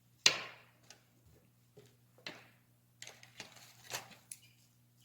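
Scattered light clicks and knocks of small objects being handled on a tabletop, the sharpest about a quarter second in, with a quicker run of light taps from about three to four and a half seconds in, over a faint steady hum.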